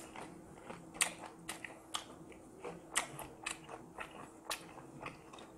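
Close-up chewing of crunchy battered fried chili pepper, with crisp crunches coming about twice a second.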